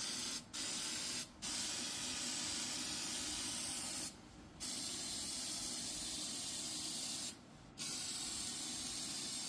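Citrus Strip paint stripper being sprayed on in a steady hiss, with four short breaks where the sound drops out.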